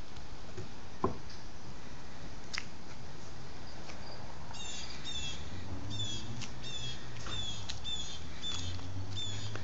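A small animal calling from about halfway through: short, high chirps that slide downward, about three a second. A light click or two comes earlier.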